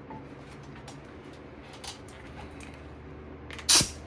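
Faint light clicks of hand work on brake parts, then one short, loud clack of metal about three and a half seconds in.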